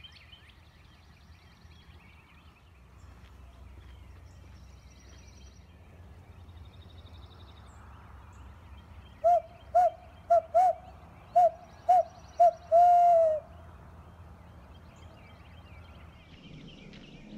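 Barred owl hoot imitated on a turkey hunter's owl call, a locator call meant to make a roosted gobbler answer: about nine seconds in, a run of about seven short hoots ending in one longer hoot that falls in pitch. Faint dawn birdsong behind it.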